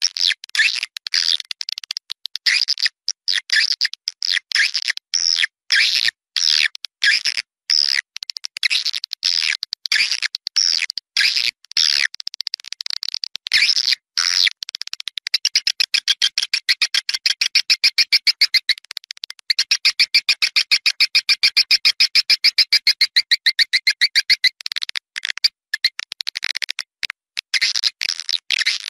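Edible-nest swiftlets twittering in a lure recording made to call swiftlets to a swiftlet house: rapid, high chirps with short silent gaps, then from about halfway through a fast, even trill of clicks that lasts several seconds before the chirping resumes.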